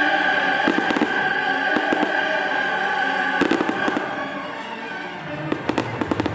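Fireworks display: sharp bangs and crackles of exploding shells over loud music with sustained notes. The music eases off about two-thirds of the way in, and a quick cluster of bangs follows near the end.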